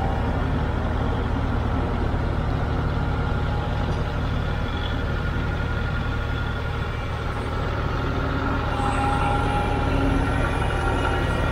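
Kubota cab tractor's diesel engine running steadily as the tractor drives off the trailer, a little quieter around the middle and picking up slightly again near the end.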